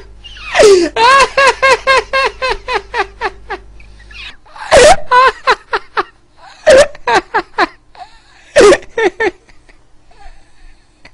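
A person laughing hard and high-pitched in rapid rhythmic 'ha-ha-ha' pulses, about four a second. Loud shrieking outbursts come roughly every two seconds, each trailing off into quicker, fainter ha's, and the laughter dies down near the end.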